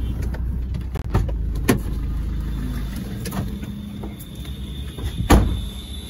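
Low steady rumble of a car heard from inside the cabin, with a few light clicks, then a loud thump of the car door shutting about five seconds in.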